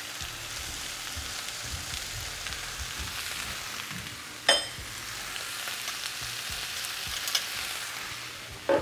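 Zucchini, yellow squash and carrots sizzling steadily in hot oil in a pan over high heat. A sharp click with a brief ring cuts through about four and a half seconds in.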